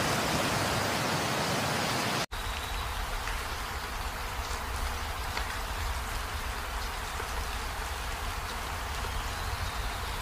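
Rain falling during a storm. For the first two seconds there is a louder, even rushing noise. After a sudden cut it becomes a steadier patter with scattered drop ticks over a low rumble.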